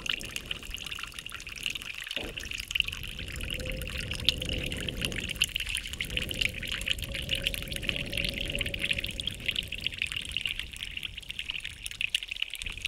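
Water trickling steadily, with a faint held tone underneath.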